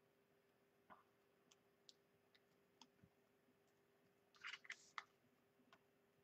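Mostly near silence, with faint scattered ticks and a brief cluster of soft rustling clicks about four and a half seconds in: hands handling cardstock as a die-cut circle backed with foam adhesive squares is lined up on a card.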